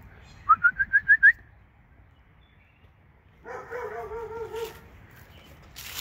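A quick run of six short, rising whistled notes, loud and evenly spaced, about half a second in. A quieter wavering, whining tone follows about two seconds later and lasts roughly a second.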